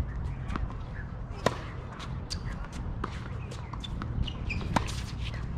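A tennis rally on a hard court: sharp pops of racquets striking the ball, the loudest about a second and a half in and again near the end, with fainter knocks of ball bounces between. A low steady rumble runs underneath.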